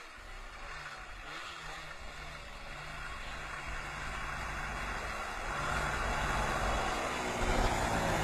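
Arctic Cat snowmobile engine running as the sled drives toward the listener, growing steadily louder from faint to close.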